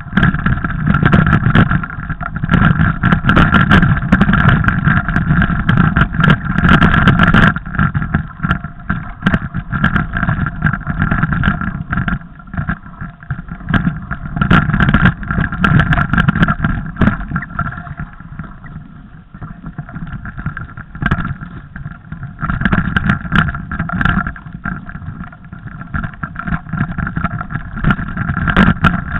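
Mountain bike ridden over a snowy, rough forest trail, heard through an onboard camera: constant rattling and clattering of the bike and camera mount, with a steady hum underneath. It eases off for a while past the middle, then picks up again.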